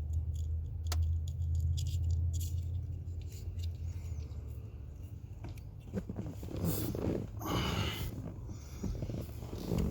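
Small clicks and rustling as heat-shrink tubing is slid onto stripped wiring-harness wires and the wires are handled, with a denser stretch of rustling later on. A low steady hum runs under the first half and then fades.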